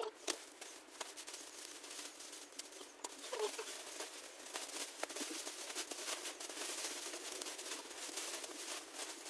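Plastic packaging wrap crinkling and crackling as it is pulled off and handled, a dense run of irregular small rustles and clicks.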